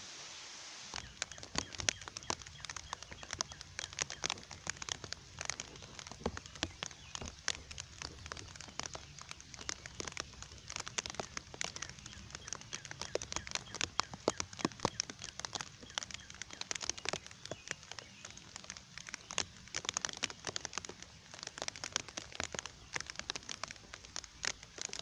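Rain falling, with many irregular raindrops ticking sharply close by. A steady hiss gives way to the drops about a second in.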